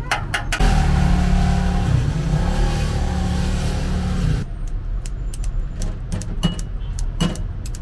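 A motor vehicle engine runs close by with a steady low hum for about four seconds and cuts off suddenly. After it come a few sharp metal clinks of scissors and utensils against a china bowl and an aluminium tray.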